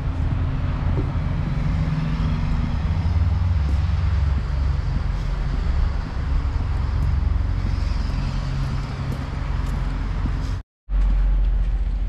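Steady road traffic noise, a low rumble of cars on a nearby street. The sound cuts out for a split second near the end, then comes back.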